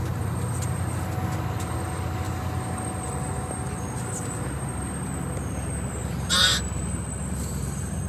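Steady low engine rumble with a faint high whine, and a brief, louder high-pitched cry-like sound about six and a half seconds in.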